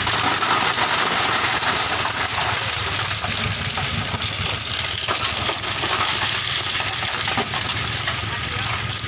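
A load of red stone sliding and clattering out of a dump truck's raised tipper bed, steady and dense, with the truck's engine running underneath.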